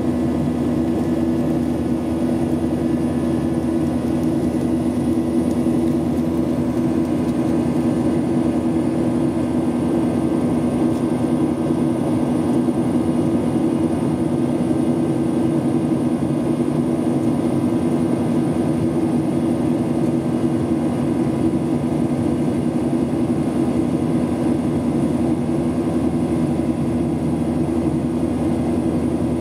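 Steady cabin noise of a jet airliner in its climb after takeoff, heard inside the cabin: the even drone of the underwing jet engines mixed with the rush of air, with a strong low hum that does not change.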